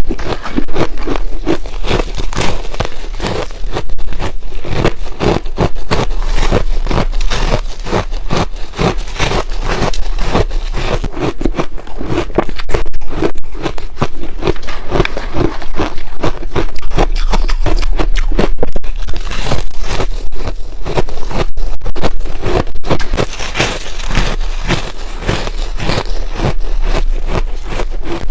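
Close-miked crunching of hard ice being bitten and chewed: a dense, continuous run of sharp cracks and crunches.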